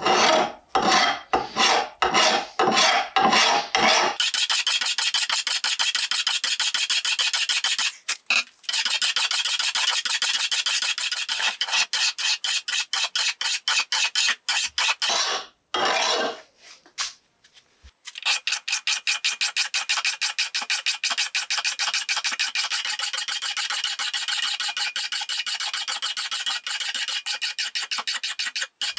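Flat hand file rasping across the steel edge of a bush axe blade in repeated strokes, sharpening it. The strokes come separately, about three a second, then turn fast and continuous after about four seconds, with short breaks near eight seconds and around sixteen to eighteen seconds.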